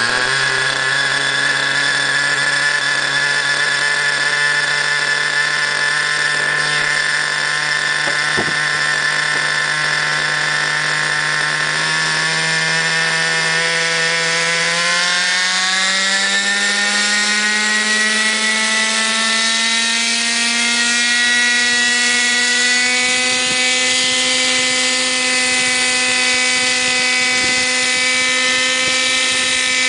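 Thunder Tiger .50 R/C helicopter's small nitro glow engine running with a high, buzzing whine while the main rotor spins on the ground. Steady at first, then from about halfway the pitch rises smoothly as the engine and rotor speed up, and holds at the higher pitch.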